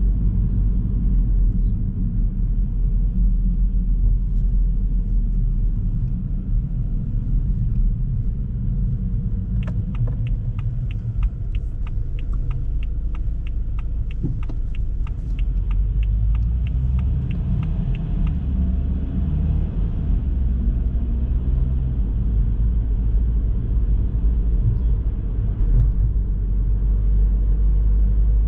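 Car driving along a road: a steady low road and engine rumble. In the middle, for about eight seconds, a regular ticking comes in at roughly two to three ticks a second.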